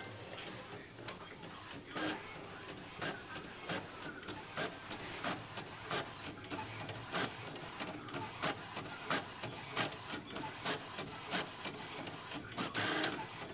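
HP Officejet Pro L7580 inkjet all-in-one printer printing, its mechanism running steadily with a sharp click repeating a little under twice a second.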